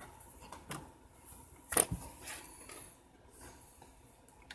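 A few scattered clicks with one sharper clack about two seconds in, from a BNC cable being handled and connected to bench test gear.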